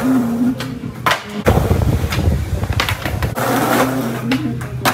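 Skateboard wheels rolling over a concrete bank with a rough rumble, broken by several sharp clacks of the board against the concrete, the heaviest about a second and a half in.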